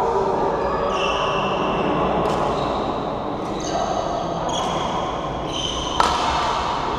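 Badminton rally in a sports hall: shoes squeaking sharply on the court floor again and again, with a few crisp racket strikes on the shuttlecock, the loudest about six seconds in, over a steady hall din.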